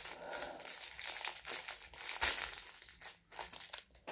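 Clear plastic wrapper of an individually wrapped cake crinkling irregularly as it is handled.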